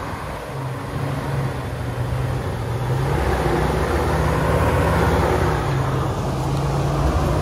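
Jeep Wrangler's 4.0-litre inline-six engine running at low revs as it crawls over a rock, growing louder as it comes closer.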